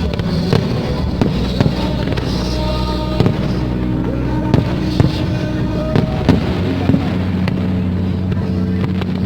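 Aerial fireworks going off with music: irregular sharp bangs about once a second, coming thicker and louder in the middle, over steady sustained music tones.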